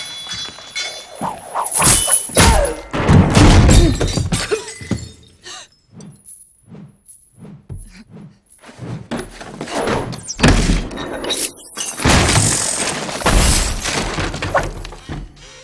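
Movie fight sound effects: heavy thuds and crashes, with things smashing and shattering, in two loud flurries, one about two seconds in and another from about ten seconds in, with scattered knocks between them.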